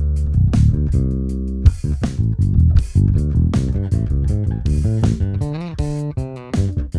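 Blade B2 five-string electric bass playing a run of notes with sharp attacks, one note near the end wavering in pitch as it is bent or shaken.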